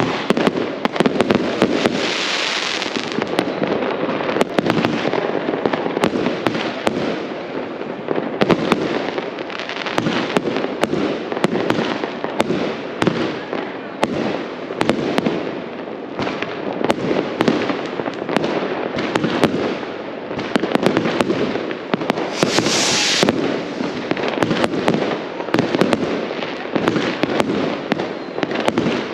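Fireworks going off in a dense, continuous barrage of bangs and crackles. A hiss rises over it about two seconds in and again about 23 seconds in.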